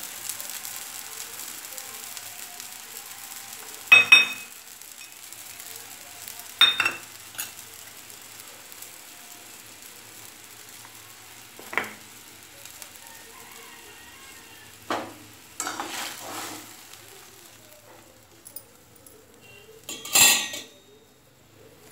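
Water with fried onion and spices heating in an iron kadhai on a gas stove, with a faint steady sizzle, not yet at the boil. Sharp ringing metallic clinks on the pan come about four and seven seconds in, softer knocks follow, and a louder clatter comes near the end.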